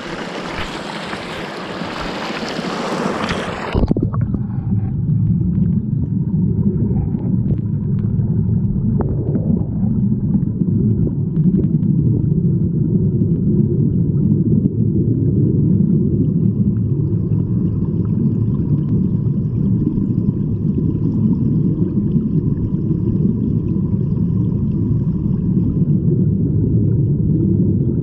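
Shallow stream water rushing over gravel, heard in open air for about four seconds. The recorder then goes under the surface, and the sound abruptly turns to a muffled, steady low rumble of the current as heard underwater.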